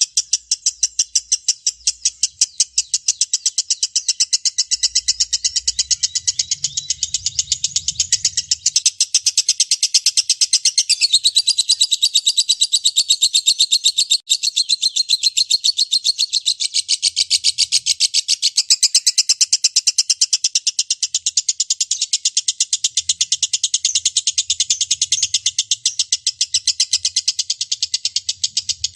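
Lovebird giving a long, unbroken 'ngekek' chatter: a fast, steady string of shrill notes that barely pauses, with one brief break about 14 seconds in.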